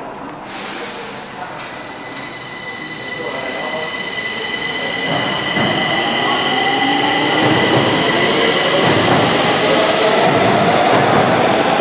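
Stockholm metro train running, growing steadily louder, with a steady high-pitched whine over the rumble and squeal of the wheels on the rails.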